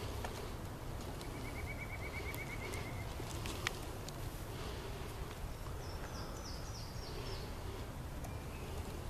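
Small songbirds singing in spring woods: an even, dry trill lasting nearly two seconds starting about a second in, and later a quick run of about six high, falling notes. A steady low rumble lies underneath, and there is one sharp click not long after the trill.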